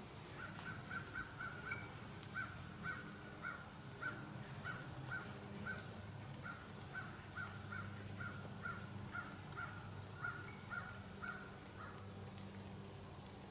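An animal's short call repeated at an even pace, about two calls a second, in a long series that stops near the end.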